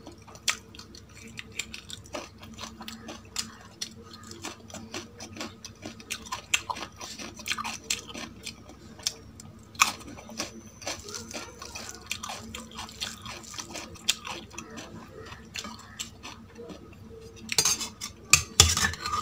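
Close-up eating sounds: a dense run of small irregular clicks and clinks of food and a plate being handled, with chewing, and a louder cluster of clatters near the end.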